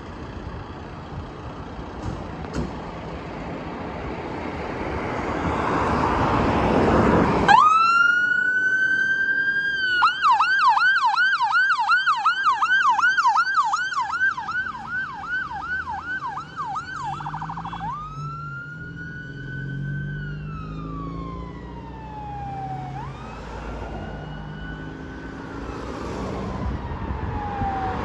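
Volvo fire engine turning out: its engine and road noise grow louder, then about a quarter of the way in the siren comes on with a rising wail, switches to a fast yelp of about three sweeps a second, and goes back to slow rising and falling wails as the truck drives away.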